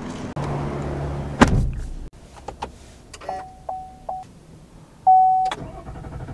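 A sharp click about a second and a half in, then the Chevrolet Silverado's electronic warning chime: a short run of ticking tones, then one louder chime about five seconds in. This is the cab powering up at the push-button start.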